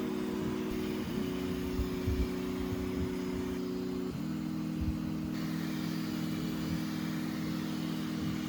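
3D printer stepper motors whining while printing: a steady hum of several tones that jumps to a new pitch about a second in and again about four seconds in, as the moves change.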